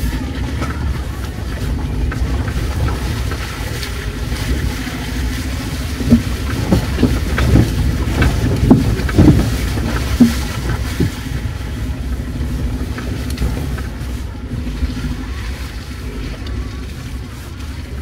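A vehicle engine running steadily at low speed, a heavy low drone. About six to eleven seconds in, a cluster of sharp knocks and thuds sounds over it.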